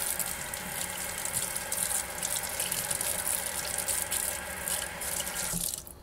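Kitchen faucet running into a stainless steel sink, water splashing over a small plastic mini-vacuum part held under the stream to rinse it. The steady rush of water cuts off near the end as the tap is shut.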